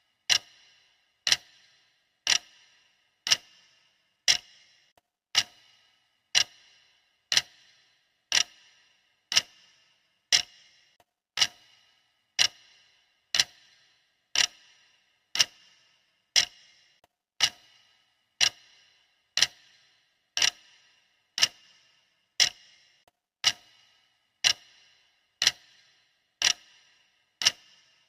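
Clock ticking steadily, one sharp tick a second, each with a brief metallic ring.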